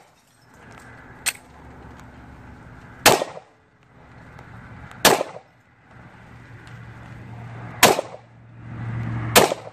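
Glock 22 pistol in .40 calibre firing four single shots at uneven intervals of about two to three seconds, with a fainter sharp crack about a second in.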